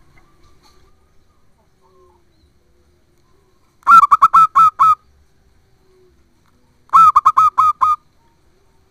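Zebra dove (perkutut) singing: two phrases of about six quick, staccato coos each, about a second long and about three seconds apart.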